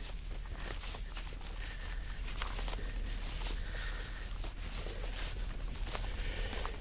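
Insects in the grass chirping in a steady, high-pitched pulsing trill of about six pulses a second.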